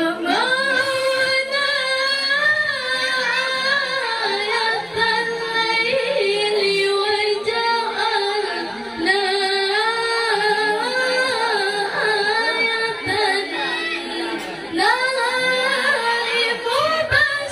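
A woman reciting the Quran in a melodic, drawn-out tilawah style, holding long ornamented notes that waver up and down, with one breath break near the end.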